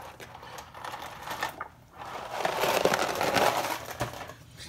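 Dry rigatoni noodles rattling in their cardboard box, then pouring out into a saucepan of water. The pour is a dense clattering rush that starts about two seconds in and lasts about two seconds.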